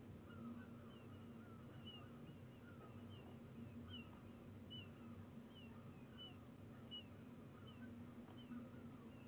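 Peregrine falcon calling faintly: a steady run of short chirps that fall in pitch, about two a second.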